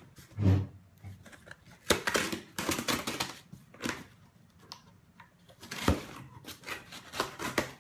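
Knife slitting the packing tape on a cardboard box and the flaps being pried open: a run of scratchy rasps and clicks, with a sharper knock about six seconds in.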